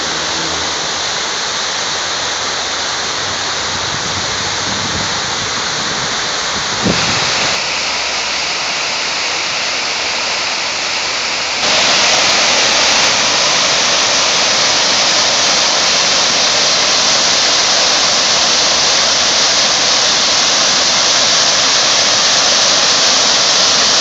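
Water pouring down the tiers of a large cascade fountain and splashing into its basin, a steady rushing that gets louder about halfway through.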